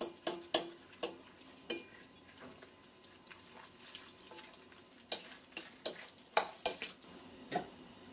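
Metal spoon mixing raw ground chicken, egg and chopped vegetables in a glass bowl, with sharp clinks of the spoon against the glass. The clinks come in a quick run over the first two seconds, ease off, then come again from about five seconds in.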